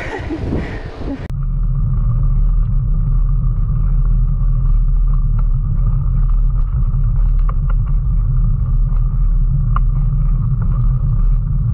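Loud, steady low rumble of a mountain bike's knobby tyre rolling on asphalt, picked up close by a camera mounted beside the front wheel; it cuts in abruptly about a second in.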